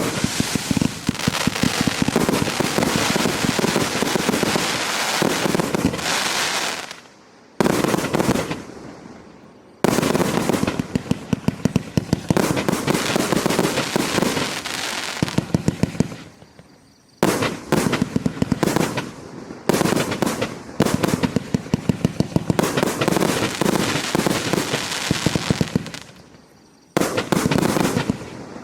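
Consumer fireworks cake firing: volleys of rapid-fire reports and crackle lasting several seconds each, with brief pauses between volleys.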